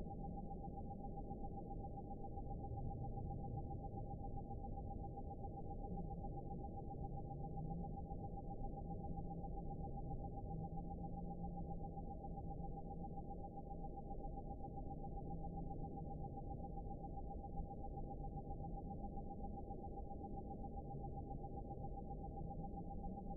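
A steady pure tone at one pitch, over a low hum that slowly wavers up and down in pitch and a rumbling noise. The sound is muffled, with no high sounds at all.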